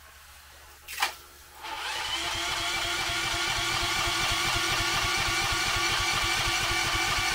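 A pressure washer starts up with a sharp click about a second in, then runs steadily with a strong pitched hum and a fast pulsing underneath.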